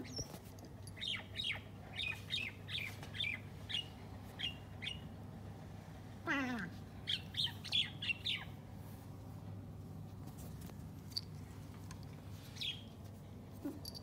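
Cat chattering at a bird through a window glass: a run of short, high chirps about two a second. About six seconds in comes a single falling meow-like cry, then another quick cluster of chirps.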